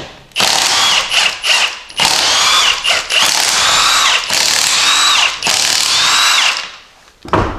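Cordless impact wrench hammering the factory 19 mm lug nuts off a Jeep Cherokee XJ's front wheel, in a few short bursts and then longer runs. The pitch of its whine falls at the end of each run. A brief thump comes near the end.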